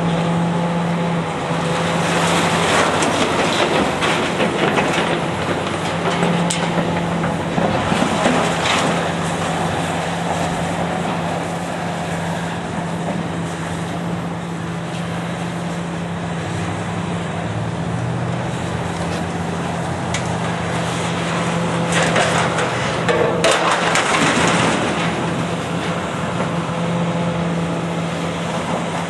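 Heavy diesel demolition machine running steadily while structural steel is crushed and torn, with louder bouts of crunching and scraping metal a few seconds in, around nine seconds in, and again later on.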